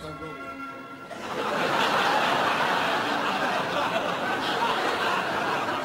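Studio audience laughing, a steady wash of laughter that rises in about a second in and holds. Before that, the tail of a pop song cuts out.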